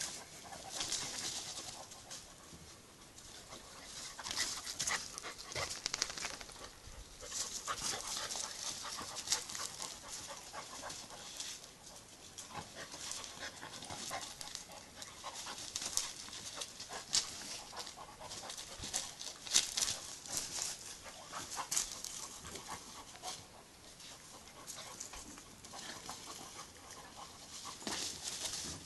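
Two dogs, a jagd terrier puppy and a larger long-haired dog, play-wrestling on gravel: panting and scuffling in irregular bursts.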